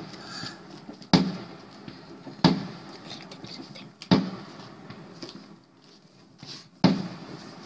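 Fireworks shells going off: four sharp booms at uneven intervals of one to three seconds, each trailing off in a short echo.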